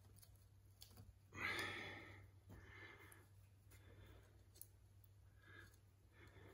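Near silence: faint small clicks of hands working a nail in a carpet tack strip, with one breathy sigh about a second and a half in.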